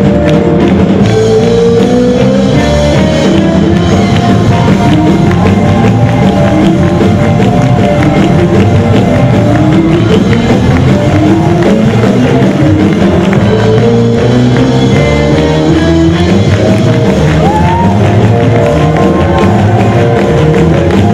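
Live worship band playing loud music: drum kit, electric and acoustic guitars and keyboard.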